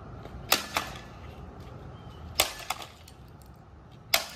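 A bat smashing down on a plastic RC car on concrete: three sharp cracking hits about two seconds apart, each followed by a smaller knock as the pieces bounce.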